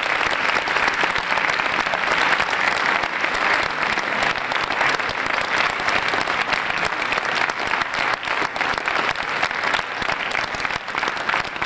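Audience applauding steadily, a dense sustained clapping that thins slightly near the end.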